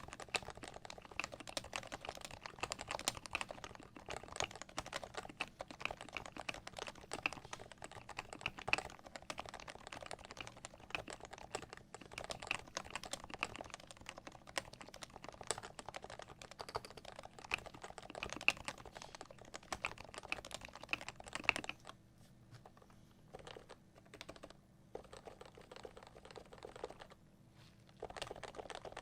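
Fast, steady typing on a Cooler Master (CM Storm) NovaTouch keyboard with lubed Topre electrocapacitive switches, fitted in a Norbatouch case with foam. Keystrokes come densely and unevenly. After about 22 s they thin to a few short bursts, pause briefly, and pick up again near the end.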